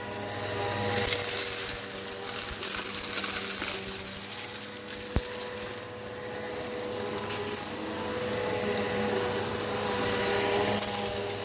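Eureka PowerSpeed upright vacuum cleaner running steadily while it sucks up rock salt and lentils, the hiss of its suction swelling and fading with scattered gritty ticks from the debris. A single sharp click about five seconds in.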